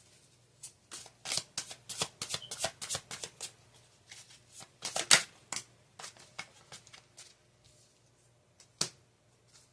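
Tarot cards being shuffled by hand: a dense run of quick, crisp card slaps for about five seconds, then a few scattered ones, the last shortly before the end.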